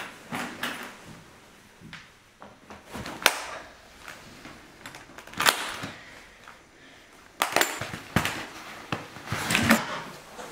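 Plastic ski boots being unbuckled and handled: scattered sharp clicks and clunks of buckles and boot shells, with several in quick succession in the last few seconds.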